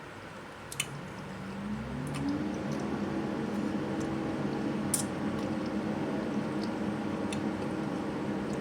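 Wet chewing and mouth sounds with a few sharp clicks. About two seconds in, a low hum starts, rises in pitch and then holds steady.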